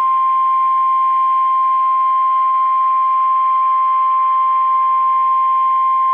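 NOAA Weather Radio 1050 Hz warning alarm tone: one loud, steady pitch with faint hiss beneath it. It is the signal that a warning is about to be broadcast.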